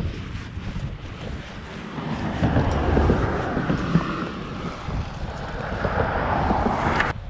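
Wind rumbling on the microphone, with traffic on the highway alongside: a vehicle swells past from about two seconds in. The sound cuts off abruptly near the end.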